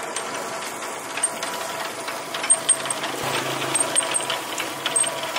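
Motor-driven charcoal rotisserie turning roast ducks on their spits: a steady mechanical hum with light rattling and clicking from the chain drive. There is a knock about three seconds in, and a lower hum joins after it.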